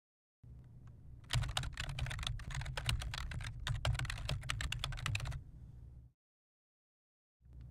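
Typing on a computer keyboard: a rapid, irregular run of key clicks lasting about four seconds, over a steady low hum. It starts about a second in and stops abruptly, then cuts to dead silence, and the hum returns just before the end.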